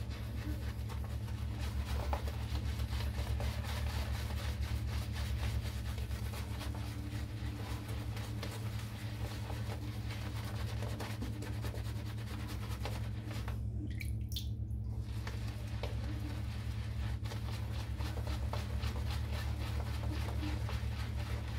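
Shaving brush working shaving soap into lather: rapid, wet squishing strokes, with a brief break about two thirds through.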